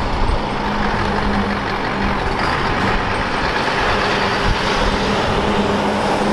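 Scania truck pulling a double trailer, driving past: a steady diesel engine hum mixed with tyre and road noise.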